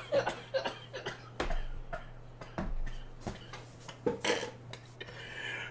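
A man's breathless, mostly silent laughter: scattered gasps, wheezes and short cough-like bursts, over a faint steady hum.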